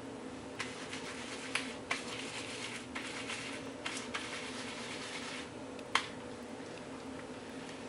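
Hands working wet conditioner-based hair colour through hair: soft squishing and scattered small clicks, with a sharper click about six seconds in, over a steady low hum.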